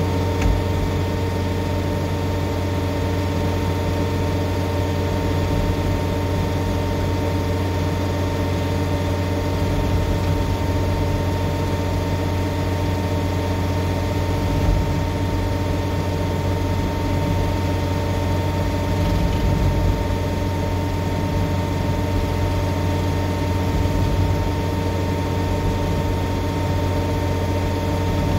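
John Deere 317G compact track loader's diesel engine and hydraulic drive running steadily under load as a Fecon Stumpex stump grinder bores into a tree stump, a constant drone with one or two brief knocks.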